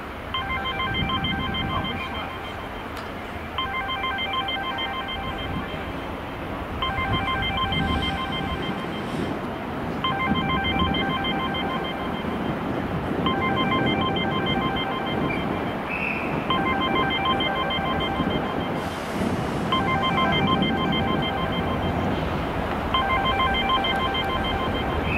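A trilling electronic ringing signal, several pitches sounding together, rings for about two seconds and repeats every three seconds, eight times. Under it runs the low rumble of a train approaching.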